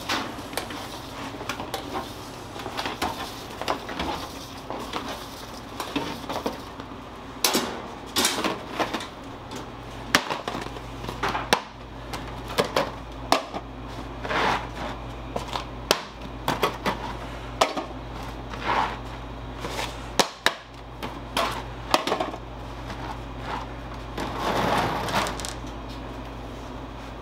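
Metal shokupan loaf tins clattering and knocking as freshly baked loaves are unloaded, with irregular sharp impacts over a steady low hum.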